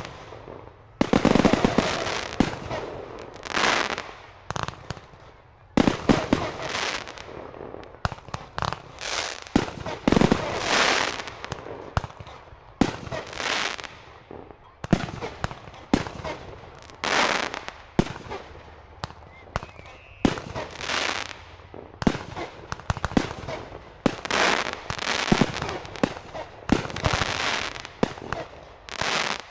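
Class C consumer fireworks display: aerial fireworks bursting in a continuous series of sharp bangs, about one every second or two, many with a fading crackle after the bang.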